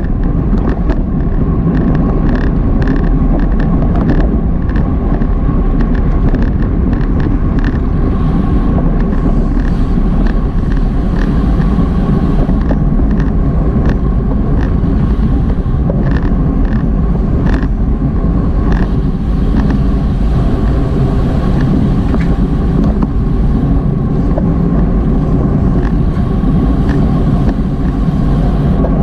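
Wind and road noise from a bicycle-mounted action camera at racing speed: a loud steady rush of wind over the microphone with tyre and drivetrain noise, a faint steady whine, and scattered clicks.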